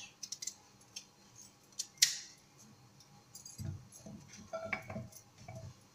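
Kitchen knife cutting through raw sweet potato held in the hand, with the pieces dropping into a glass bowl: scattered soft cuts, knocks and clicks, with one sharper ringing click about two seconds in.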